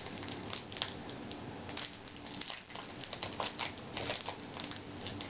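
Foil booster-pack wrapper of trading cards crinkling in the hands as it is opened, an irregular run of small crackles.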